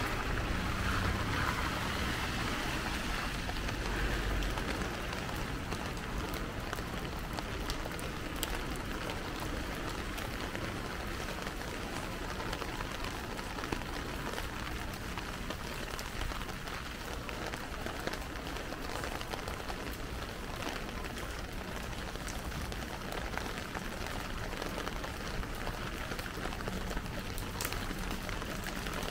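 Heavy rain pouring steadily, with scattered sharp ticks of individual drops striking close by.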